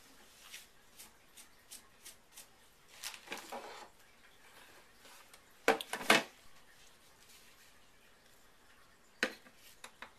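Light clicks and handling on a wooden tabletop, then a sharp double knock about six seconds in as a stainless digital kitchen scale is set down, and another knock near the end as a glass measuring cup is placed on the scale.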